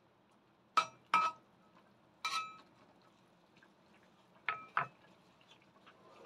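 Metal wok spatula clinking against a stainless steel wok while stirring sliced bitter melon in water: five sharp ringing knocks, three in the first couple of seconds and two close together about four and a half seconds in, over a faint simmer.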